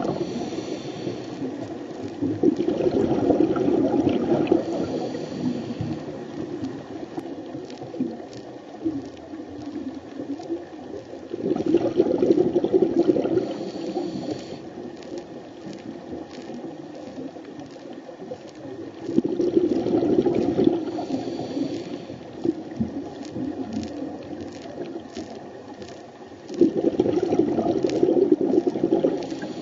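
Underwater recording of a scuba diver's exhaled air bubbles, one burst of bubbling about every seven or eight seconds, four in all. Faint clicks and crackles of water noise fill the gaps between them.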